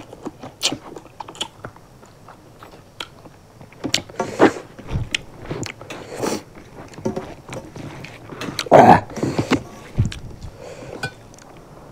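Close-miked eating: two people chewing and biting rice, fish curry and singju by hand, irregular wet smacks, clicks and crunches, with louder bites about four seconds in and again near nine seconds.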